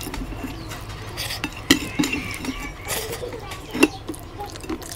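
Eating sounds from a mukbang meal, with a few sharp clicks and clinks (three stand out) over softer mouth and handling noises.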